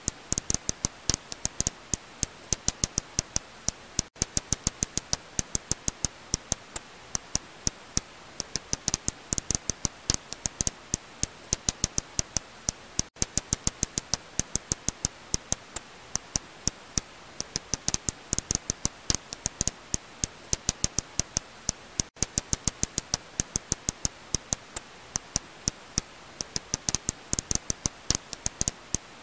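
Serotine bat echolocation calls made audible through a bat detector: rapid, irregular clicks, several a second, some much louder than others, over a steady hiss.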